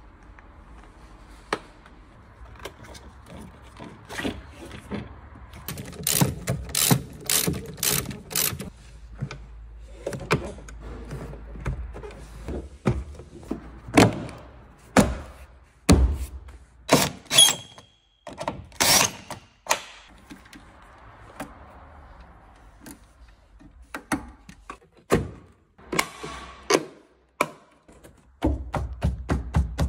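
Hands working a VW Caddy's plastic interior trim: push-in trim clips handled, and plastic pillar trim panels knocked and snapped into place. A quick run of about five sharp clicks comes a quarter of the way in, followed by scattered single knocks and snaps.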